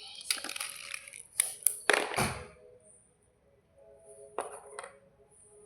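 White slate bars cracking and crunching as they break: a run of sharp snaps in the first two seconds or so, the loudest about two seconds in, then quieter with a few faint clicks later.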